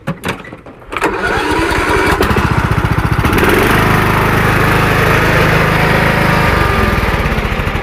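Riding lawn mower's engine starting about a second in, then running loudly and steadily, easing a little near the end.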